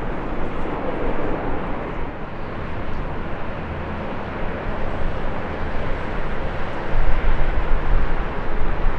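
Jet airliner on landing approach, its engines a steady rushing roar that swells with a deep rumble near the end.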